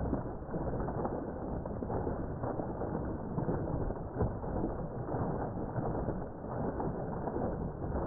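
A jet of water pouring into a pond, splashing and churning steadily on the surface.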